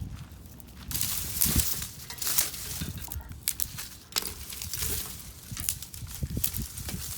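Wooden branches snapping and breaking. After a quieter first second comes a fast run of sharp cracks and crackling, in bunches with short lulls.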